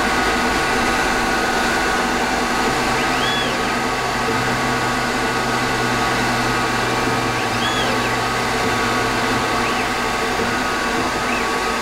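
Emco Compact 5 PC CNC lathe running a program: a steady hum and whine from the spindle drive, with several short whines that rise and fall in pitch as the NEMA 23 stepper motors speed the axes up and slow them down on rapid moves.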